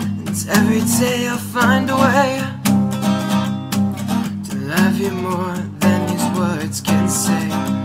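Background music: a song led by strummed acoustic guitar.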